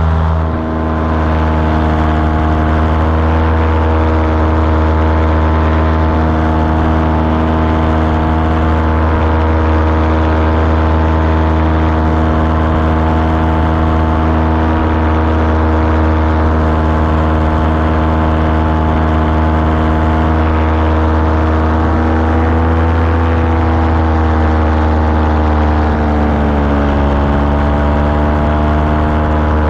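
Small aircraft's propeller engine running steadily in flight at constant power. Its pitch sags a little twice in the last third and recovers.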